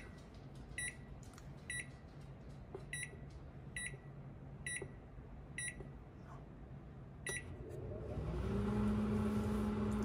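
Microwave oven keypad beeping about eight times, roughly a second apart, as the power level is stepped down to zero, then the oven starting and running with a steady hum near the end. It is set to zero percent power, so the oven runs without heating.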